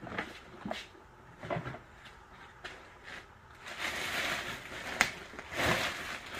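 A few light knocks as objects are shifted, then the crinkly rustle of a black plastic garbage bag being grabbed and handled through the second half, with one sharp snap about five seconds in.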